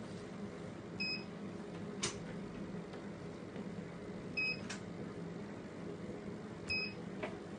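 Touchscreen control panel of a fractional laser machine beeping three times with short high key beeps as its buttons are pressed, over a steady low machine hum, with a few sharp clicks in between.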